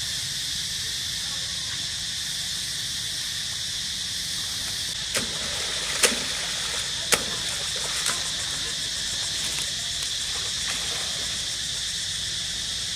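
Steady, high-pitched chorus of forest insects, crickets or cicadas, with a few sharp clicks in the middle, the loudest about six seconds in.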